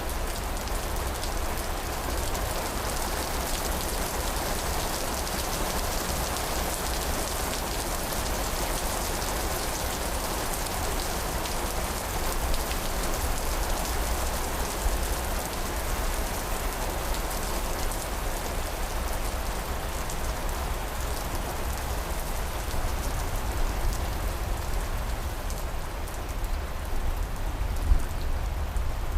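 Steady rain falling: an even, continuous hiss of many drops with a low rumble underneath.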